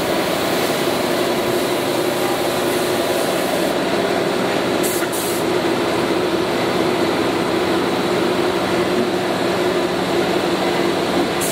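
Spray-finishing equipment running steadily: a constant motor hum under the hiss of a compressed-air spray gun applying a finish coat to wooden furniture.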